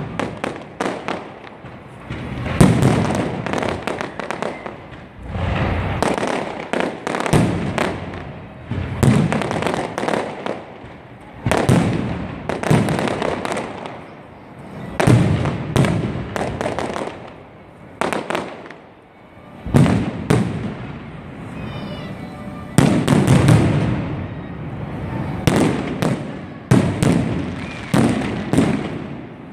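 Fireworks display: aerial shells bursting overhead in quick succession, many sharp bangs each trailing off in reverberation, coming in waves with short lulls between them.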